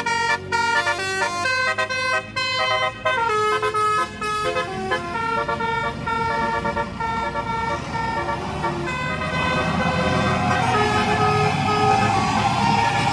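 Telolet basuri multi-trumpet horn on a QQ Trans tour bus playing a tune in chords: quick short notes for the first few seconds, then longer held notes. A rush of noise grows under it over the last few seconds.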